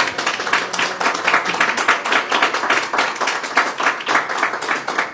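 Applause: a group of people clapping their hands steadily.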